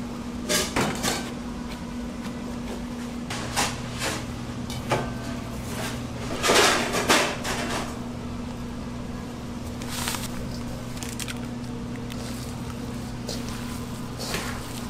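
Kitchen food-prep handling: ground pork patted on a plastic cutting board, then a metal bowl knocking and cooked onions scraped into a stainless steel mixing bowl, with scattered knocks and clatters loudest about halfway through. A steady electrical hum runs underneath, and a lower hum joins about three seconds in.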